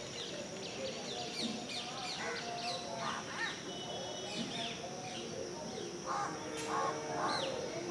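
Birds chirping and calling in many short, quick sweeping notes, over a steady high-pitched insect drone.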